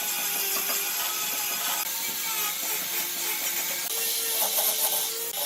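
Woodworking tool noise: a steady hiss of working wood with scattered light clicks, and a thin steady tone joining in near the end.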